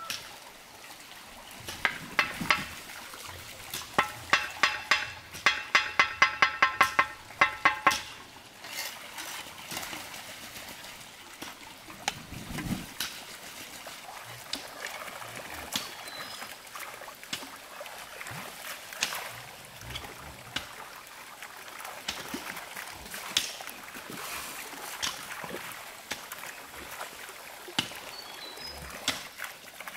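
A steel mason's trowel tapping bricks down into mortar: a run of sharp, ringing taps, about two a second, in the first several seconds. After that come only occasional light knocks.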